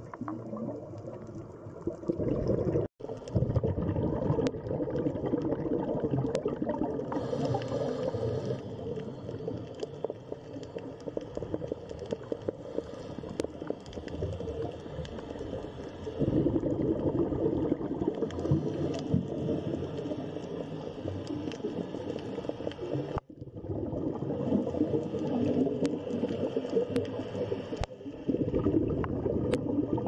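Underwater bubbling and gurgling: a dense, crackly rumble of water noise that breaks off abruptly for a moment twice.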